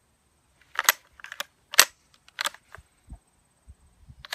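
Ruger 10/22's bolt and action being worked by hand to clear a round that did not feed all the way: several sharp metallic clacks spread over a few seconds.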